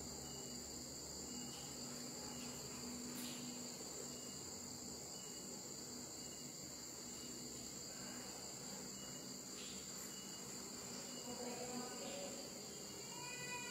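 Crickets trilling steadily in a high, even drone.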